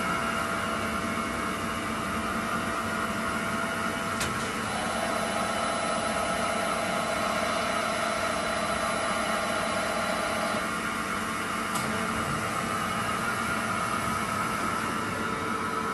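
Toyoda FA450II CNC horizontal machining centre running with a steady hiss and hum. A steady whine comes in about five seconds in and stops about ten and a half seconds in, with a sharp click just before it starts and another a second after it stops.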